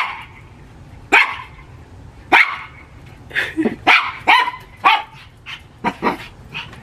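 Small white fluffy dog barking: a series of short, sharp barks, about a second apart at first, then coming quicker in a cluster.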